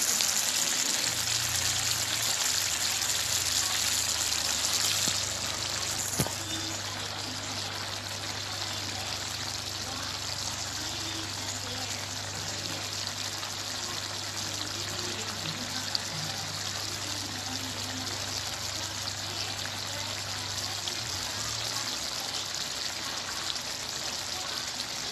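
Chicken adobo in coconut milk with papaya simmering in a pot: a steady bubbling hiss over a low hum. It drops a little in level about five seconds in, and there is a single click around six seconds.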